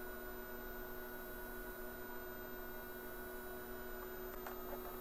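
Steady electrical hum made of a few constant tones, from the bench power supplies driving the TV's LED backlight strips during a test. A couple of faint clicks come near the end.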